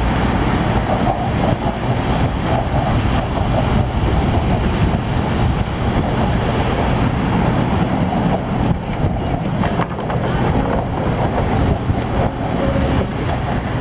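Steady wind noise on the microphone mixed with the rumble of car traffic on the bridge roadway below.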